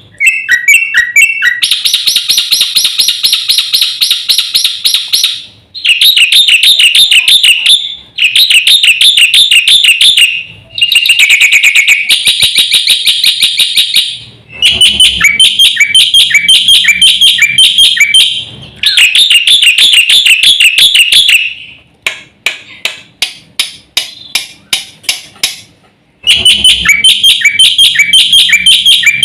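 Black-winged myna (jalak putih) song: loud, shrill phrases of rapid trilled and repeated notes, each a few seconds long with short breaks between, including a run of sharp rapid ticking notes about three quarters of the way through.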